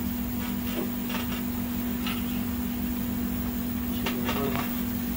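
A steady low hum with a few faint, short clicks and scrapes about half a second, one, two and four seconds in.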